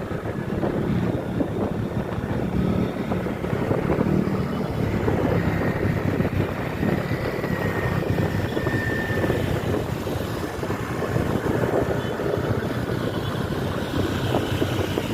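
Bus engine running steadily, a continuous low drone with road and wind noise.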